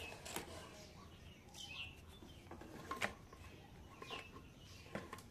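Faint bird chirps: a couple of short calls falling in pitch, a few seconds apart, over quiet room noise, with a few soft clicks in between.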